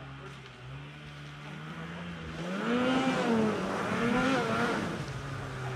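Snowmobile engines idling with a steady low hum. About two and a half seconds in, one is revved twice, its pitch rising and falling each time.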